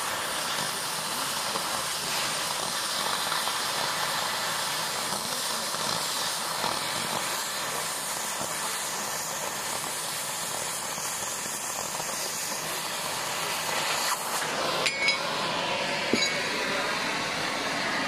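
Oxy-fuel cutting torch hissing steadily as its flame cuts through a steel bar. About fifteen seconds in the hiss eases and there are a couple of short metallic clinks.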